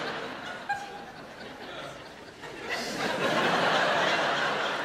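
Audience laughing, easing off about a second in and swelling again about three seconds in.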